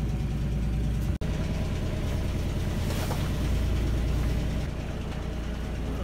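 Sailing yacht's inboard engine running steadily at idle, a low, even hum with a momentary break just over a second in.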